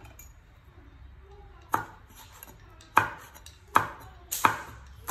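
Steel cleaver chopping through a knob of root onto a wooden chopping board: about five sharp knocks, starting under two seconds in, with the blade striking the board roughly every second or less.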